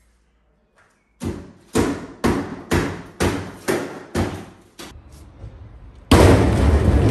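Plasterboard demolition: a run of about eight even thuds roughly half a second apart, then a sudden loud crash about six seconds in that fades slowly, as plasterboard debris drops into a metal trailer below.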